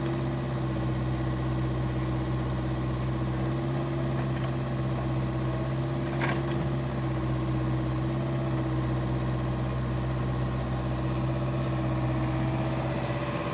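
Caterpillar 304E mini excavator's diesel engine running at a steady speed as the machine digs, with one short sharp knock about six seconds in.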